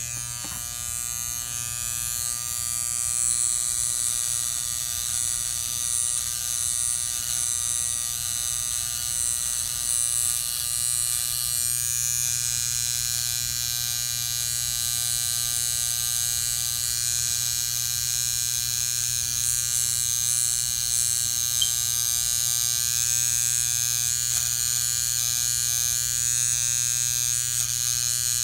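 Electric hair trimmer buzzing steadily as its blade works along the forehead hairline, doing the line-up.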